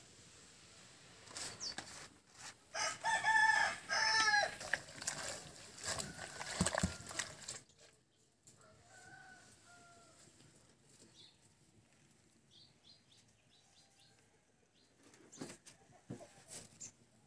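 Mustard greens being handled and torn into an aluminium bucket, with rustling and small knocks, and a rooster crowing a few seconds in, its loud pitched call in two parts. Faint bird chirps follow in the quieter middle.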